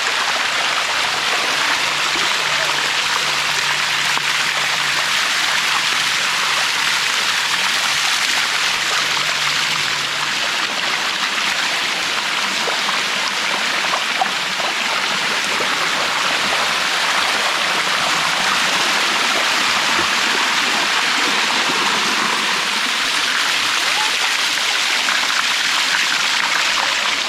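Water of the Bua Tong waterfall rushing steadily down its limestone cascade, an even, unbroken noise.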